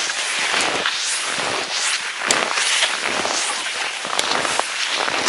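Skis crunching and swishing through dry snow in steady strides, with a couple of sharp clicks.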